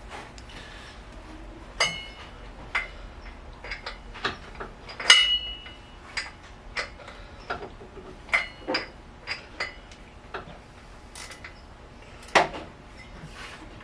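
Metal hand tools clicking and clinking against engine parts in a car's engine bay: irregular sharp clicks, a few ringing briefly, with the loudest clink about five seconds in and another strong one near the end.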